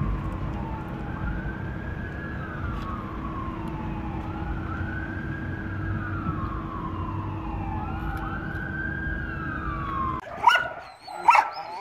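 A distant siren wails, rising and falling about every three seconds, over a steady low hum and rumble. It all cuts off abruptly about ten seconds in, and a dog gives two short yips near the end.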